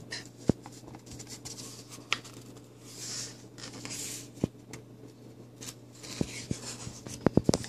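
Pages of a hardcover picture book being handled and turned: paper rustling with scattered light taps, and a quick run of clicks near the end.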